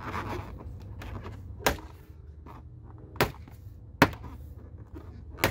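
Four sharp knocks of a fist on the plastic lower door cladding of a Jeep Grand Cherokee WJ, spaced irregularly about a second apart: the panel is being pounded home onto double-sided 3M molding tape.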